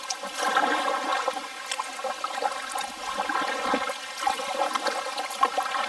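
Kayak paddle working the water: splashing and trickling as the blades dip and drip, with a few small sharp clicks.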